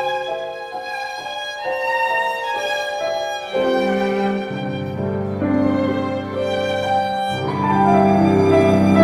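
Piano trio music: the violin carries a slow bowed melody, and low sustained notes join beneath it about three and a half seconds in, the texture growing fuller near the end.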